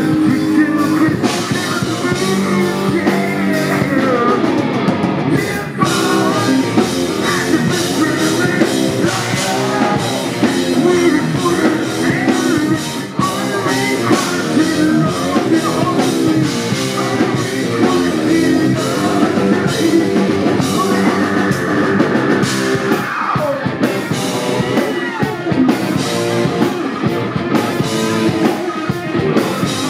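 Hard rock band playing live and loud: distorted electric guitars, bass guitar and drum kit, with a singer's vocals over them.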